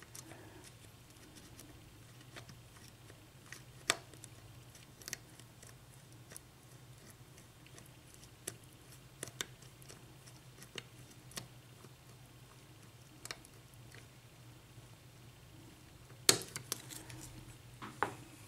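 Sparse, faint clicks of a lock pick and tension wrench working the pin stacks of a Kwikset-type pin tumbler lock, with a louder run of clicks near the end as the plug turns and the lock opens. A steady low hum runs underneath.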